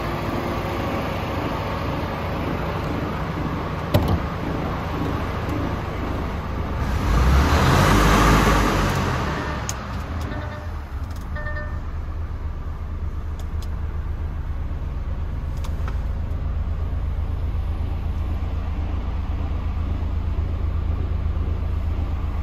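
Paccar 440 bhp six-cylinder diesel engine of a DAF XF106 truck idling steadily, a deep even rumble. A sharp knock about four seconds in, and a louder rushing swell around eight seconds in, as the sound shifts into the cab.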